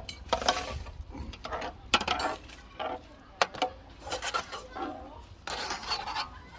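Cutlery and dishes clinking, a string of sharp light knocks and clinks at uneven intervals.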